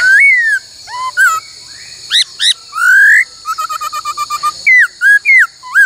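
Laughingthrush singing a loud, varied song of clear whistled notes that slide up and down, with a rapid run of about a dozen short notes midway, over a steady high hiss.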